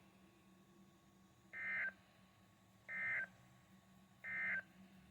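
Emergency Alert System end-of-message signal on NOAA Weather Radio: three short, identical bursts of warbling digital data tones, about a second and a half apart, marking the end of the warning broadcast.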